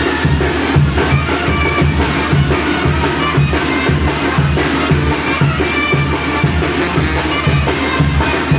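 Loud dance music with a steady, evenly repeating drum beat and heavy bass, played through a mobile disco sound system.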